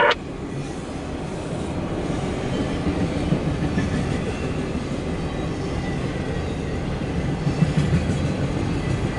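Freight train of autorack and intermodal cars rolling past close by: a steady low rumble of steel wheels on the rails.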